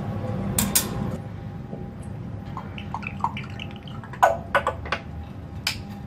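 Sharp metallic clinks and rattles from an African grey parrot moving about its wire cage, in a cluster about half a second in and a busier one just after four seconds, with a few short faint squeaks in between.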